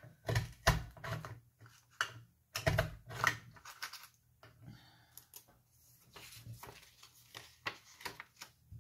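Handheld paper punch (We R Memory Keepers) clicking and thudding as it is squeezed through the corner of a small stack of thin paper, with paper rustling and handling knocks between. The loudest thuds come about half a second in and again just under three seconds in.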